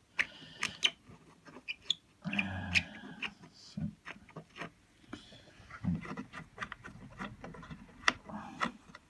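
Cordless drill briefly whirring as it backs out screws from a speaker cabinet's back panel, with scattered clicks and knocks of screws and the panel being handled.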